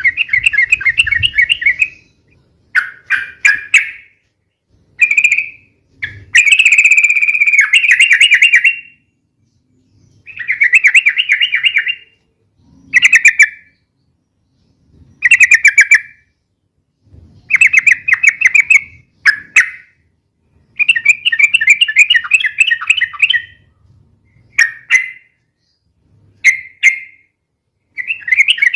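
Yellow-vented bulbul (trucukan) singing loudly in a long series of rapid, bubbling warbled phrases, each about a second or two long, with short pauses between them.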